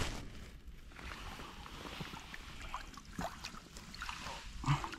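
Faint rustling and light clicks and knocks of a person crouching and handling a freshly landed trout, with a short low grunt near the end.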